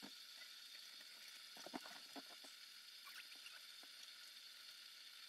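Near silence with a steady faint hiss, broken about two seconds in by a few soft knocks and rustles as a person shifts about and climbs onto a campervan bed.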